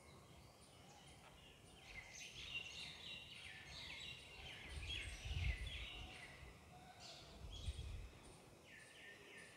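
Faint squeaking and scratching of a marker writing on a whiteboard, in short strokes from about two seconds in until near the end, with a couple of soft low thuds in the middle and later on.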